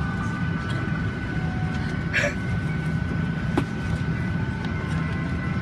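Steady low hum and whoosh of a Boeing 737 cabin's air-conditioning at the gate, with a faint constant whine. A short rustle about two seconds in and a light knock about three and a half seconds in come from bags being pushed into the overhead bins.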